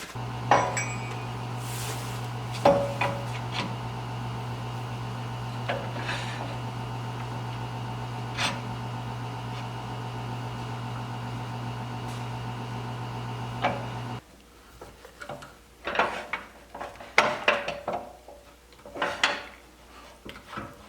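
Electric wood lathe motor running with a steady hum, with a few sharp clicks and knocks over it, then switching off suddenly about two-thirds of the way through. After it stops, a run of irregular sharp wooden knocks and taps follows.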